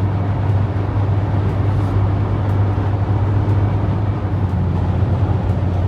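Steady road noise inside a car cabin at highway speed, with a constant low drone.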